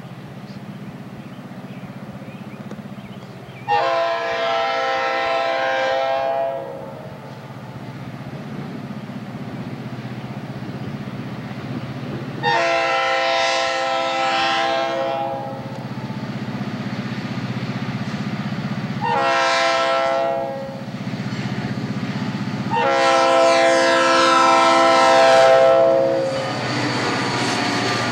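Air horn of a CSX SD40-2 diesel locomotive sounding the grade-crossing signal as it approaches: two long blasts, a short one, then a long one. The locomotive's V16 EMD diesel engine rumbles underneath and grows louder as it draws near.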